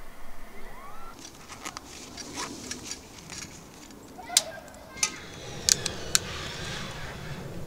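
Small metal candle lantern being opened and handled, then a few sharp clicks of a long utility lighter's igniter about five to six seconds in, followed by a soft hiss as the candle is lit.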